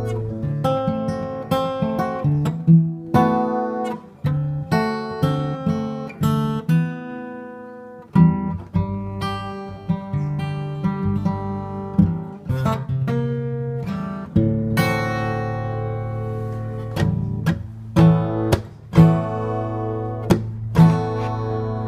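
Acoustic guitar played solo, strummed chords mixed with picked notes that ring on between strokes.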